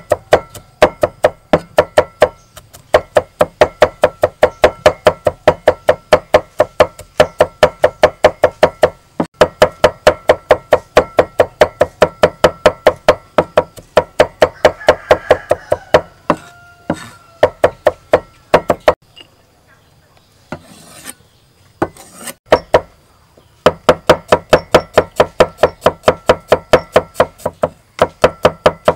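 Cleaver mincing garlic on a thick round wooden chopping block: fast, even knocks of the blade on the wood at about five a second. There are a few brief breaks and a lull of a few seconds past the middle with only scattered knocks.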